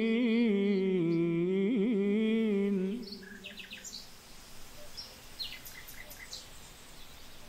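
A male reciter holds the final chanted note of the supplication, wavering through ornamented turns, until it stops about three seconds in. Then faint bird chirps and tweets sound over a soft outdoor ambience.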